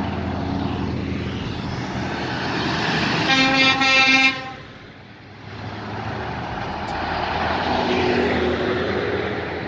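Heavy trucks driving past with engines running, and a truck air horn sounding one blast of about a second partway through, cut off sharply.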